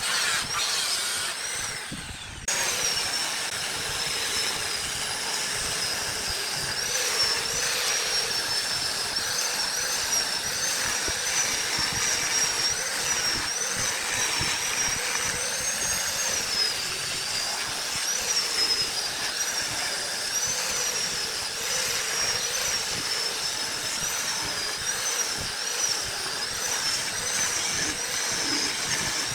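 Wood lathe running with a turning tool cutting the spinning wood: a steady rushing noise with a high, wavering whine. The sound changes abruptly about two seconds in.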